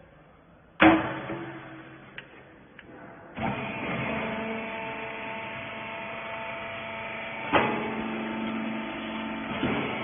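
The baler's lid bangs shut about a second in; a couple of seconds later the hydraulic rag baler's electric motor and pump start and run with a steady hum while the ram presses the rags, with a single clunk about two-thirds of the way through.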